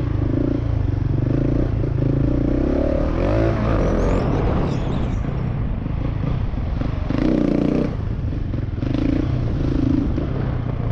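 Husqvarna 701 Enduro's big single-cylinder engine being ridden hard on dirt, the throttle opening and closing: strong pulls in the first few seconds, a change in revs around the fourth second, and further bursts of throttle in the second half. Rattles and scrapes from the bike and ground run under the engine.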